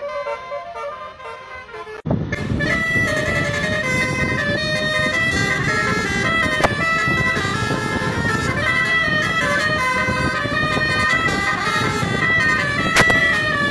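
Bus 'telolet' basuri multi-tone air horn playing a stepped melody of held notes. About two seconds in it becomes much louder, over a rough rumbling noise.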